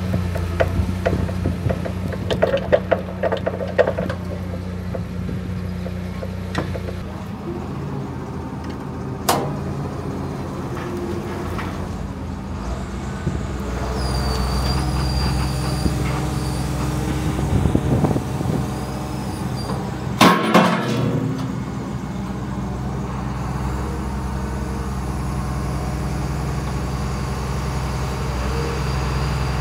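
Diesel engine of heavy equipment running steadily, with scattered clicks and knocks and one loud knock about twenty seconds in.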